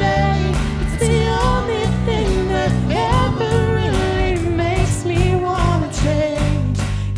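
Live worship band playing a contemporary Christian song: electric guitars, bass guitar and a steady drum beat under singers carrying the melody.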